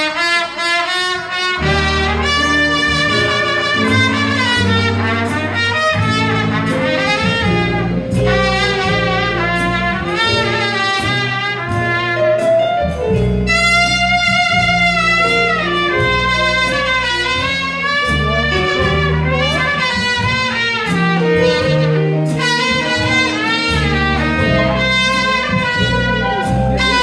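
Live swing band: a trumpet plays a solo melody line with bends and slurs over upright bass, piano and drums.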